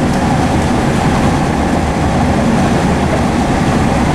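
Steady running noise inside the passenger saloon of a Southeastern Class 465 Networker electric multiple unit travelling at speed, an even rumble with no breaks or clicks.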